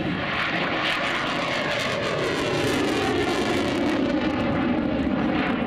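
MiG-29 fighter's twin RD-33 turbofans at high power as the jet pulls up and climbs away: loud, steady jet noise whose pitch falls over the first few seconds.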